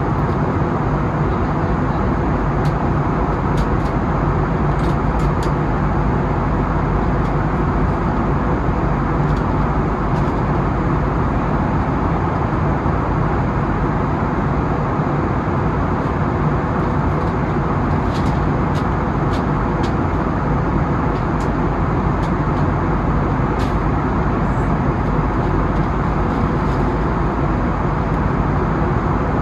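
Steady engine and airflow noise of an Airbus A320-family neo airliner, heard from inside the passenger cabin, with a faint steady hum.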